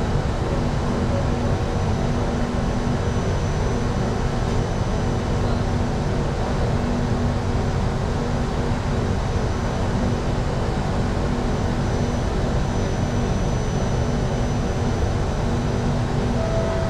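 Steady hum of an MRT train standing at a station platform, its onboard air conditioning and electrical equipment running. A new steady tone comes in near the end.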